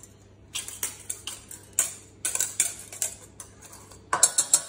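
Wire whisk tapping and scraping inside a small ceramic bowl, knocking the soaked gelatine out into a stainless steel saucepan: irregular metallic clinks, with a quick run of louder clinks near the end.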